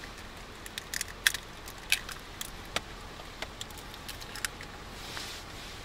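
Eggs being cracked and opened over a metal bowl: a scattering of sharp, irregular taps and clicks from eggshell and metal.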